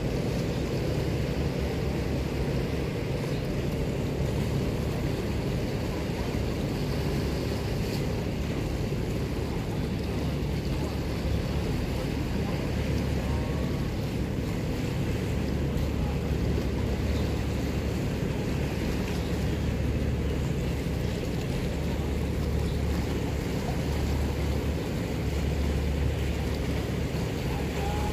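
Waves washing and splashing against granite shoreline boulders, mixed with a steady low rumble of wind on the microphone.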